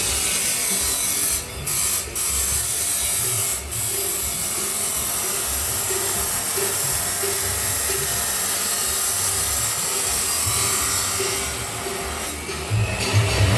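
Grinder cutting through stainless steel pipe, a steady high-pitched grinding. It drops out briefly three times in the first four seconds and eases off for a moment near the end.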